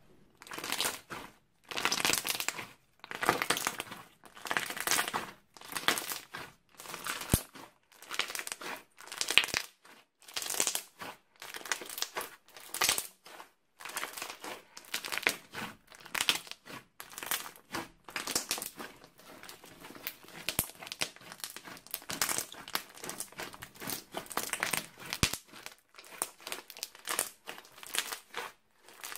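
Crunchy slime squeezed and kneaded by hand, giving a series of crackling, crinkling squishes about once a second.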